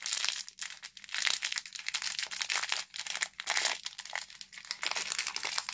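A small thin plastic wrapper crinkling and tearing in the hands as it is pulled open to free a mini figure, in a quick irregular run of crackles.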